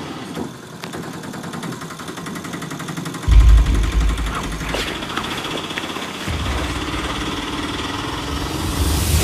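Auto-rickshaw engine running with a fast, steady putter. A deep low boom comes in about three seconds in, and a low rumble from about six seconds on.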